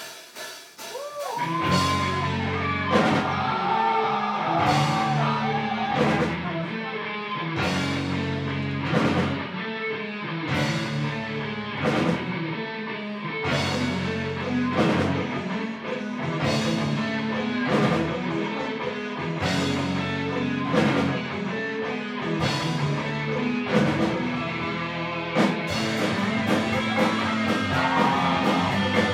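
A rock band playing live: a full drum kit with a crash cymbal struck about every one and a half seconds, over electric guitar and bass. It kicks in right at the start and reaches full level within about two seconds.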